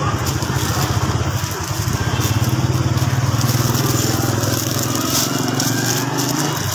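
A small motorbike engine running with a steady, fast pulse, cutting out near the end. Thin plastic food-prep gloves crinkle as they are pulled on.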